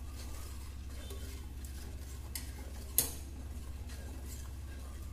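A wooden spatula stirring thick curry gravy in a clay pot, with one sharp knock of the spatula against the pot about three seconds in, over a steady low hum.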